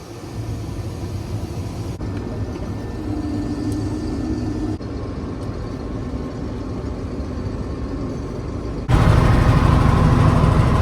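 Combine harvester's engine running, a steady low rumble heard from inside the cab; it turns abruptly much louder about nine seconds in.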